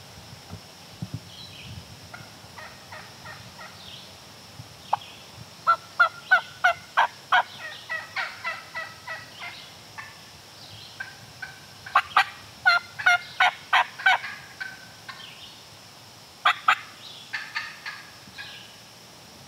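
Wild turkey yelping: runs of loud, quick yelps, about three a second, with softer calls between them.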